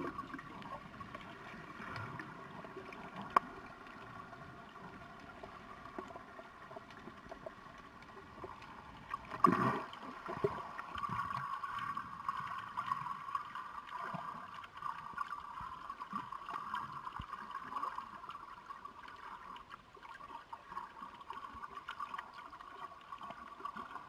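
Muffled water noise with gurgling, picked up by a camera held under the surface. A sharp click comes about three seconds in, and a louder burst about halfway.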